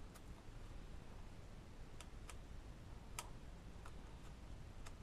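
A few faint, scattered clicks and light taps from small steering-hub parts and hardware being handled, over a low steady background hum.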